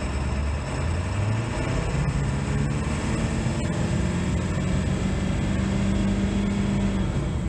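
1999 Ford E450 motorhome's engine heard from inside the cab, pulling with the 4R100 automatic transmission held in first gear. The engine pitch climbs over the first second or so, then holds high for several seconds without an upshift, dropping back near the end. First gear is holding as it should.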